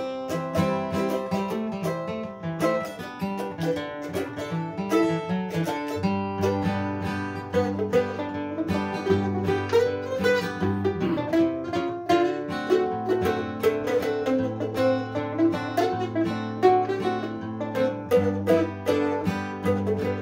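A mandolin and an acoustic guitar playing a fiddle tune, a rag, together: a dense stream of quick picked notes over a steady rhythm.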